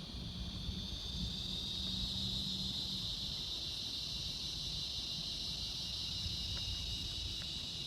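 Insects calling in a steady, continuous high-pitched drone that doesn't break, with a faint low hum under it that fades out about three seconds in.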